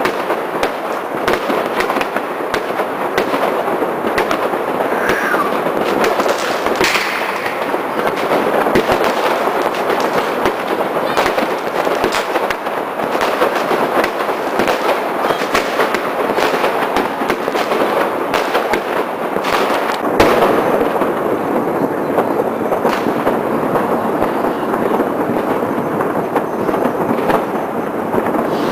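Many fireworks going off at once: a dense, unbroken crackle of bangs and pops, with a couple of brief whistles about five to seven seconds in.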